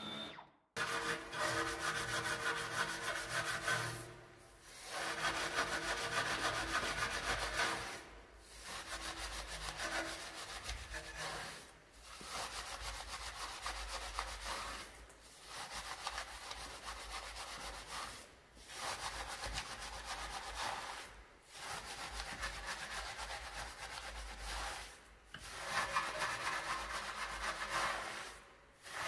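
A wheel brush scrubbing a foamed alloy wheel between its spokes, with bristles rubbing on the wet metal. It comes in about eight stretches of a few seconds each, broken by short pauses.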